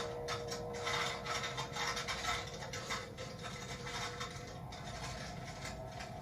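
Saw rasping in quick, uneven back-and-forth strokes, busiest in the first three seconds and lighter after, over a faint steady hum.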